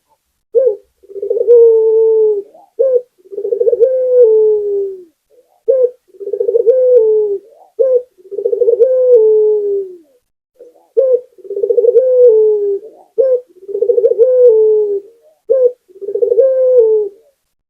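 Barbary dove (puter) cooing over and over: each phrase is a short note followed by a long rolling coo that falls in pitch at the end, about seven phrases in all.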